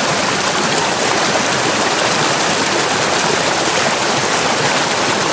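Rushing stream water: a loud, steady rush without a break.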